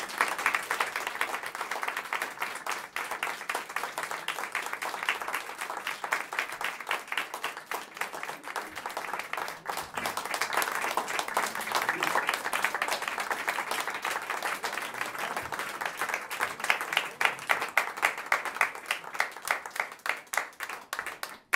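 Audience applauding steadily, a dense patter of many hands clapping that swells a little around the middle and stops suddenly at the end.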